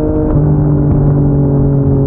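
Yamaha MT-09's inline three-cylinder engine running through a Yoshimura R55 slip-on exhaust, cruising at highway speed. Its steady engine note steps down in pitch about a third of a second in, over a low rumble of wind and road.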